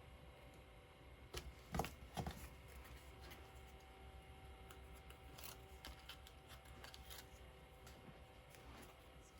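Faint handling of paper and craft supplies on a desk: a few soft taps and rustles, the loudest pair about two seconds in, over a low room hum.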